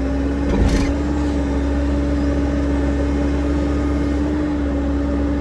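A vehicle engine running steadily with a constant hum. There is a short knock about half a second in.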